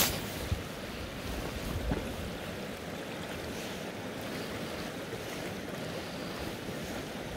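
Steady rush of a shallow river flowing over a gravel bar, with a brief knock of handling noise right at the start.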